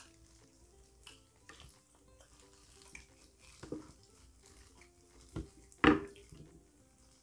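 Quiet background music with a simple melody, under faint eating and handling sounds at the table: chewing, plastic gloves and small clicks of food and dishes. A sharp knock about six seconds in is the loudest sound.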